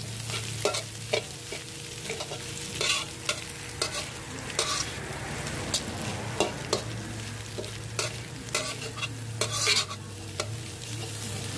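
Metal spatula scraping and knocking against a metal wok in irregular strokes as Chinese kale, sausage and egg are stir-fried, over a steady sizzle of the food frying.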